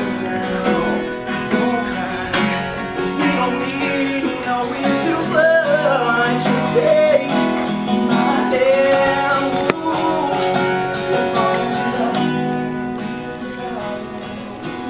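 A song: acoustic guitar playing under a singing voice.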